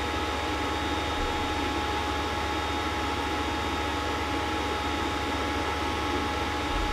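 Creality CR-10S Pro 3D printer running: a steady fan hiss with several steady whining tones over a low hum.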